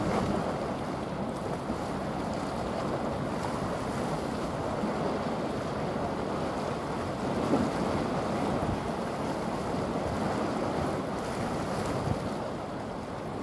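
Steady rushing of wind buffeting the microphone mixed with water washing, as a bulk carrier passes close by.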